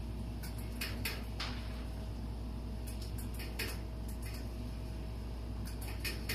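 Scattered short dry clicks and rustles, some in quick clusters, as a chinchilla rabbit doe moves her head in a hay nest, licking her newborn kits. They sit over a steady low hum with a faint steady tone.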